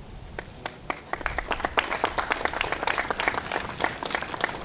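A small crowd applauding: many hands clapping, building about a second in and fading away near the end.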